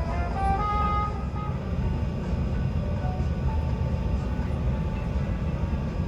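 Steady low rumble inside the cabin of an Airbus A380 taxiing after landing. A few soft music notes play over it in the first second and a half.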